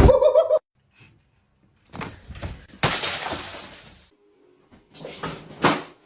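A sudden crash of something falling and shattering, its clatter dying away over about a second. A few sharp knocks follow near the end.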